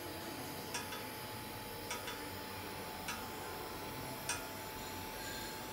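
TIG welding arc at 180 amps on stainless steel pipe: a faint steady hiss with a thin high whine. Sharp ticks come about every second and a quarter.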